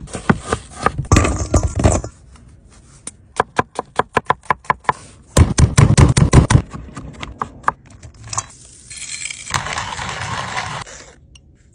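Knife strokes on a wooden cutting board, then a run of quick, even chops, loudest about halfway through, as garlic cloves are chopped. In the last few seconds a small hand-cranked wooden coffee grinder grinds steadily as its crank is turned, stopping shortly before the end.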